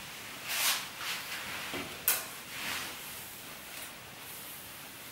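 Soft rustling swishes of hair being handled and a salon cape shifting: a few brushes in the first three seconds, the sharpest just after two seconds in.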